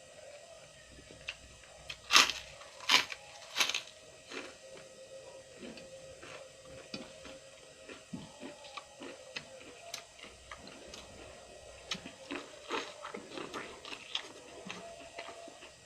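A person eating close to the microphone: three loud crunchy bites in quick succession about two seconds in, then steady smacking and chewing.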